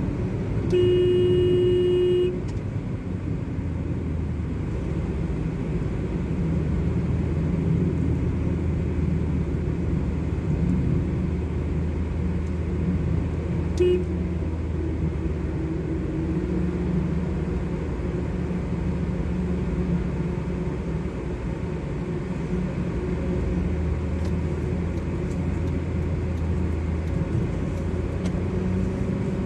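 Steady engine and road rumble of a car driving on a highway, heard from inside the cabin. A vehicle horn sounds for about a second and a half, starting about a second in, and gives one short toot about halfway through.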